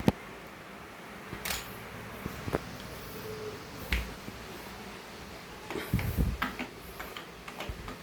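Scattered sharp clicks and light knocks of small hard objects being handled, with a couple of dull thumps about four and six seconds in.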